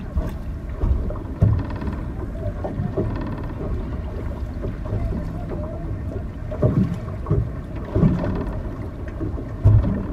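Wind and water noise aboard a boat: a steady low rush of wind on the microphone, broken by several short low thumps, the loudest near the end.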